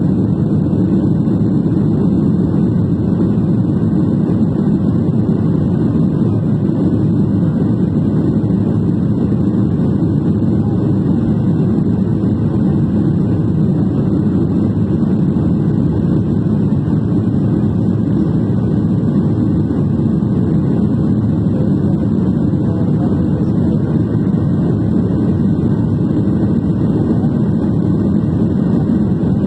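Cabin noise of a Boeing 737-800 climbing out after takeoff: a steady, low-pitched noise from its CFM56-7B engines and the airflow, heard inside the cabin.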